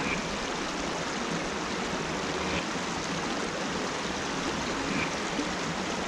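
Shallow rocky creek flowing over stones and riffles: a steady, even rush of running water.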